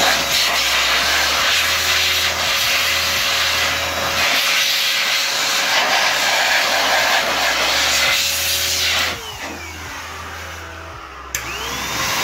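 Handheld electric air blower running at full speed, blowing grime off a used alternator. About nine seconds in it is switched off and winds down with a falling whine, then near the end it is switched back on and spins up with a rising whine.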